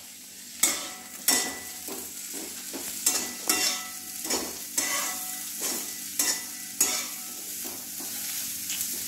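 Spatula scraping and knocking against a metal kadhai as chopped radish, onion and tomato are stirred, about one or two strokes a second, over a steady light sizzle of the vegetables frying in oil.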